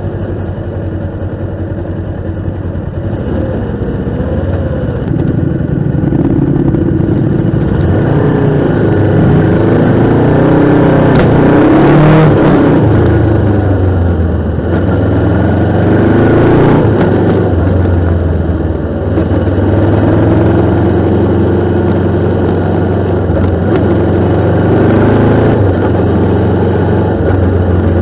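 Motorcycle engine under way, its pitch rising and falling repeatedly with the throttle, growing louder after the first few seconds, with a rushing noise swelling briefly near the middle and again a few seconds later.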